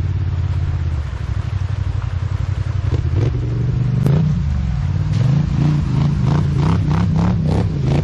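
Polaris Scrambler XP 1000 ATV engine running at steady low revs, then blipped in a quick series of revs from about three seconds in, about three a second near the end.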